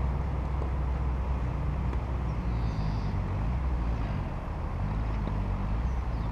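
Steady low background rumble with no ball strikes or voices.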